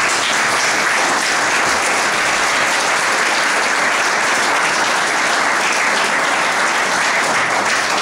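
Audience applauding: many people clapping together in a dense, steady applause.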